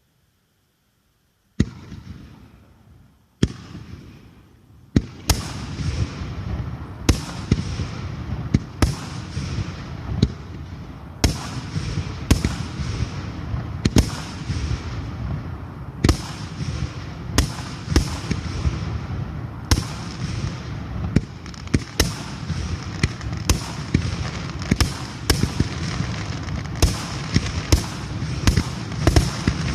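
Japanese star mine fireworks barrage: after a second and a half of silence, two single shell bursts a couple of seconds apart, then from about five seconds in a continuous barrage of sharp bangs, about one or two a second, over a steady din of bursting shells.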